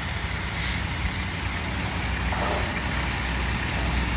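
Diesel engines of excavators at work on a demolition site, running steadily with a low hum.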